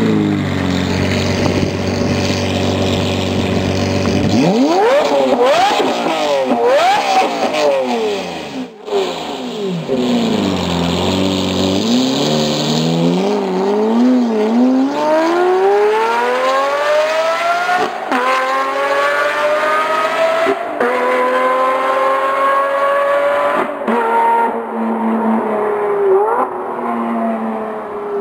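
Lamborghini Murciélago V12 running through a Fi Exhaust aftermarket system. It idles steadily, is blipped in several quick revs about four seconds in, then accelerates hard away in long rising pulls with short breaks at the gear changes.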